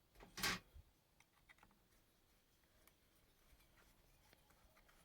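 Quiet handling noise while screws go back into a Blue Max chainsaw's cover: one short scrape or knock about half a second in, then faint scattered clicks.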